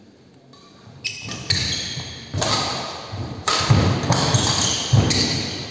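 Badminton rally: rackets strike the shuttlecock about once a second, each hit echoing in the hall, with players' feet thudding on the wooden court. It starts after about a second of quiet.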